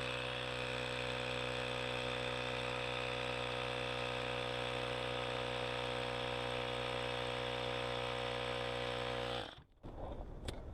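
Ryobi handheld air compressor running steadily, inflating a bicycle tire, then cutting off suddenly near the end.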